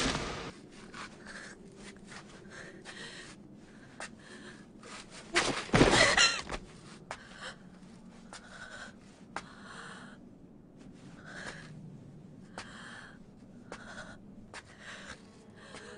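Voice-acted gasping, laboured breathing of a badly injured young woman: short pained breaths about once a second. A single louder burst of sound comes about five and a half seconds in.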